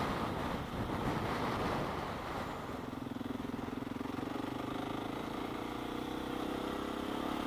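Motorcycle engine running under way, its note settling to a steady, even pitch about two seconds in, with wind noise over the microphone.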